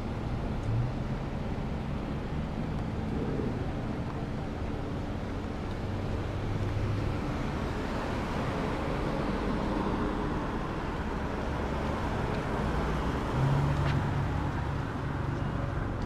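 Slow road traffic: cars and a minivan driving past close by, a steady mix of engine hum and tyre noise.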